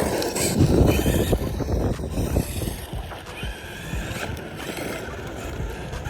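Wind buffeting the microphone, with the faint whine of a 1/8-scale Rlaarlo DSK-8 buggy's brushless motor, running on a 4S battery, rising and falling in pitch as the buggy drives off over grass and dirt.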